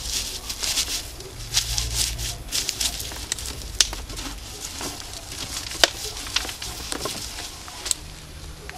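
Crisp, irregular crackling and rustling of thin shredded strips being gathered and pulled by hand.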